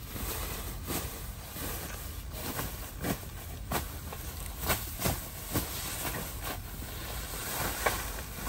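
Irregular crackling and rustling from the foil-lined tent floor mat and dry grass as a baby monkey crawls over them and a man shifts on the mat, over a steady low hiss.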